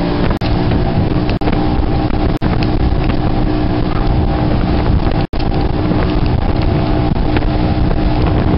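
Evinrude E-TEC 250 H.O. two-stroke V6 outboard running steadily at speed, mixed with wind buffeting the microphone and the rush of the wake. The sound cuts out for an instant several times.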